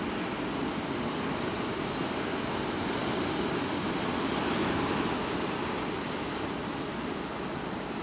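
Rough storm surf from a typhoon swell breaking and washing over a rocky shore: a steady rush of water that swells a little about halfway through.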